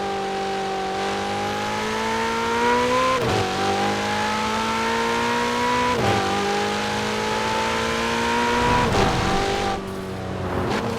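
Ferrari 488 Pista's twin-turbo V8 accelerating through the gears. The engine note climbs steadily and drops sharply at each upshift, three times about three seconds apart. Near the end it falls back as the throttle eases off.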